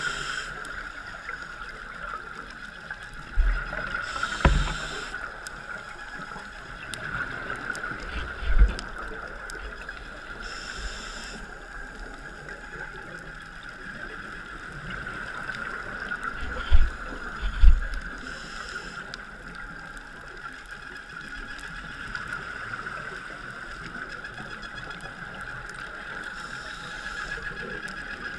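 Underwater sound from a scuba diver's camera: a steady hum with the diver's exhaled regulator bubbles rushing past about every seven seconds, and a few deep thumps, two close together about two-thirds of the way through.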